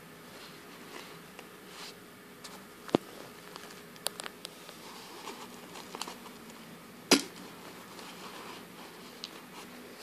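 Close handling noise of a crochet-covered glass bottle: soft rubbing and scratching with a few sharp clicks and knocks as the bottle and its lid are gripped. The loudest click comes about seven seconds in.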